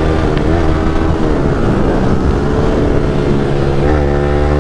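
Yamaha R15 V3's single-cylinder engine breathing through a replica Leo Vince Cobra exhaust with its dB killer removed, running at a steady cruise. The revs rise briefly near the end.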